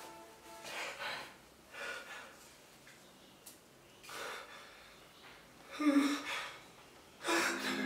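A man's heavy, gasping breaths, one every second or two, with a short voiced gasp about six seconds in. Background music tones fade out at the start and come back in near the end.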